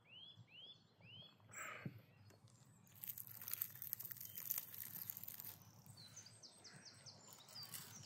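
Small birds chirping in quick rising notes, then a few seconds of dry crackling as the crispy crust of a baked fish is torn apart by hand, with more short high bird chirps near the end.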